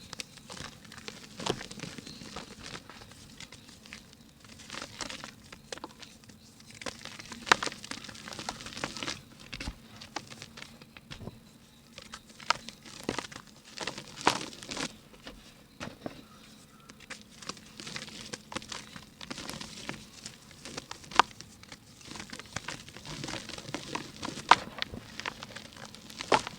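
Dry pink mud being crumbled by hand: a crumbly rustle broken by irregular crisp cracks and a few sharper snaps as chunks break apart.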